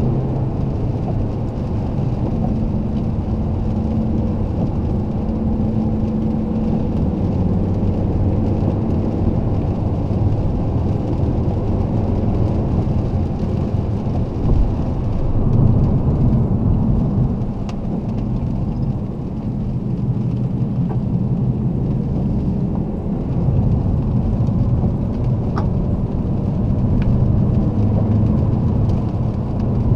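Alfa Romeo 159 2.4 JTDm's five-cylinder diesel engine pulling on the road, together with steady tyre and road rumble. The engine note shifts several times as the car accelerates and changes gear.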